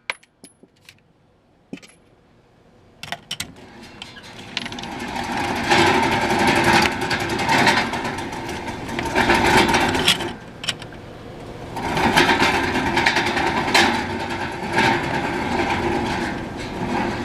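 A few faint clicks, then a mechanical running sound with a steady hum and rattle that builds a few seconds in and swells and eases several times.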